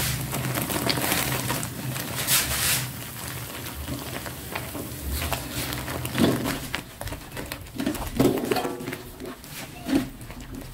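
Spatula stirring and scraping spice paste frying in a wok, with the paste sizzling.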